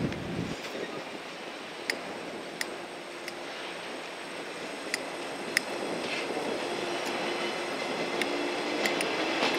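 Yellow JR West 113-series electric train rolling slowly, its wheels giving sharp clicks over rail joints in uneven groups, over a steady low train noise with a faint hum in the second half.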